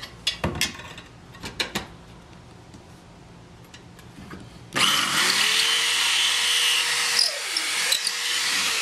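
A few light clicks and knocks, then about five seconds in an electric drill starts and runs steadily, its motor whine rising quickly to speed as a small pilot bit bores up through the plywood trailer floor from underneath.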